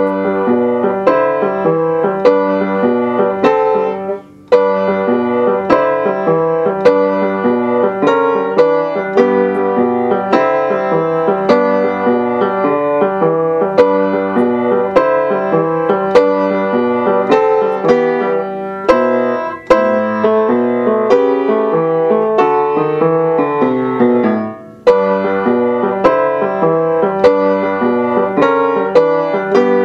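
Upright piano played by hand: a boogie-woogie piece with steady, evenly struck chords. It breaks off briefly about four seconds in and again about twenty-four seconds in.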